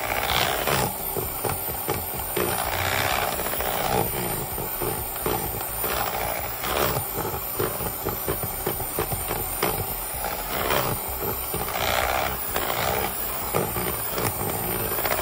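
Electric hand mixer running steadily, its twin beaters whipping thick chocolate cake batter in a bowl.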